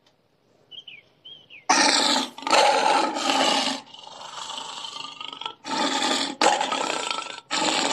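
Big cat roaring and growling: a run of loud roars one after another, starting just under two seconds in after a near-quiet start.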